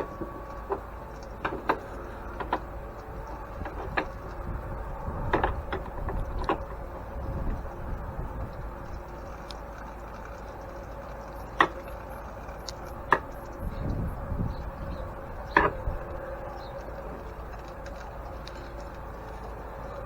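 Scattered metallic clicks, clinks and knocks of hand tools working on an antique grain mill's metal parts, with three sharper knocks in the second half, over a steady background hum.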